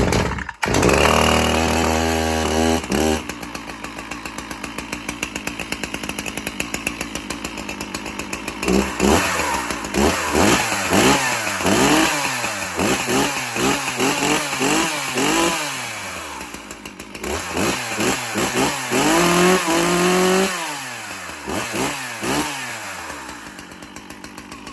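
Stihl MS361 60cc two-stroke chainsaw started on half choke with the chain brake on. It catches at once and runs fast for a few seconds, then drops to a pulsing idle. Over the middle and again near the end it is revved up and down repeatedly, then settles back to idle.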